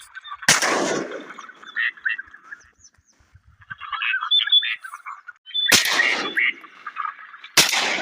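Three shotgun shots: one about half a second in, then two more close together near the end, each ringing out briefly. Between them, ducks keep up rapid quacking calls.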